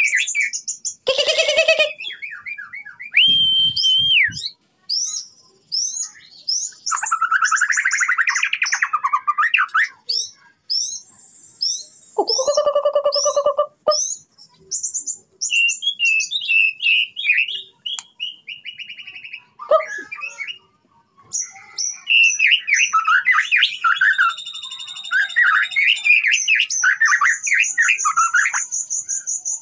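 Young white-rumped shama, about six months old, singing a long, varied song of clear whistles, buzzy phrases and fast trills in bursts with short pauses, ending in a rapid series of high repeated notes.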